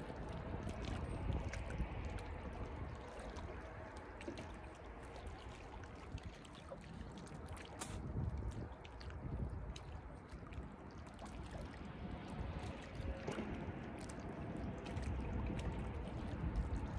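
Water lapping and gurgling, with scattered light clicks.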